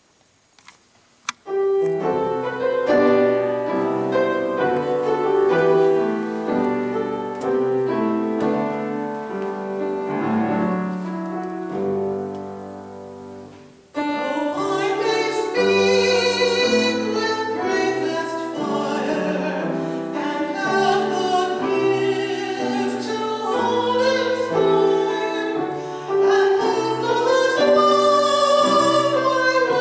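Grand piano plays a slow introduction, fading out about halfway through. Then voices come in singing with vibrato, with the piano accompanying.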